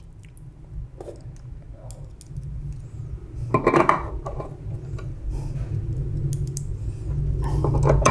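A steel drum shaft clinking and scraping against the metal frame of a Toshiba e-Studio 856 copier drum unit as it is slid back into place, with a burst of clatter about three and a half seconds in and more near the end.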